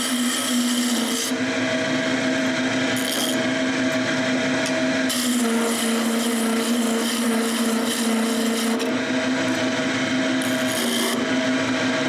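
Wood lathe running with a steady motor hum while a handheld turning tool cuts into the spinning wooden handle blank: a continuous scraping hiss of wood being shaved away. It swells and eases as the cut is pressed in, and the hum sags slightly in pitch while the cut is heaviest.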